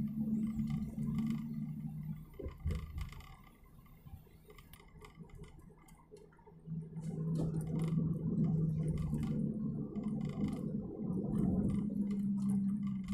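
Steady low drone of a car's engine and road noise heard inside the moving car's cabin, with light ticks and rattles; it drops away for a few seconds about three seconds in, then comes back.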